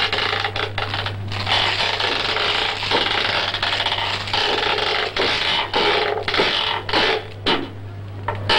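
Dense buzzing of a swarm of bees, a film sound effect, over a steady low hum from the old soundtrack.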